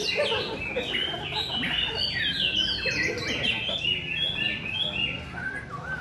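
Caged shamas singing: several birds at once, in overlapping runs of clear whistled notes and quick slurs.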